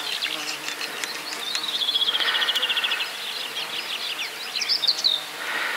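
A small songbird singing: a fast trill of quick repeated notes that falls slightly in pitch about two seconds in, followed by a run of scattered short chirps.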